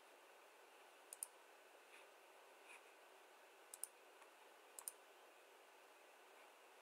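Computer mouse clicking in quick pairs, three times, against a quiet room.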